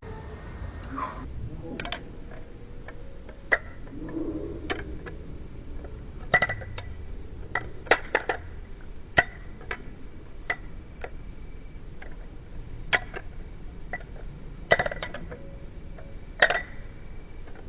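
Balisong (butterfly knife) handles clacking and clinking as the knife is flipped through a combo, heard slowed down: separate sharp clicks with a short metallic ring, about one every second or two.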